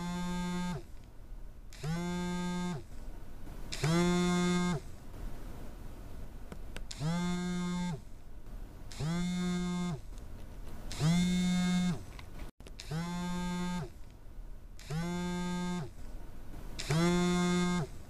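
A short pitched call is repeated nine times, about every two seconds, in three groups of three with the third of each group louder. It is a looped meme sound effect.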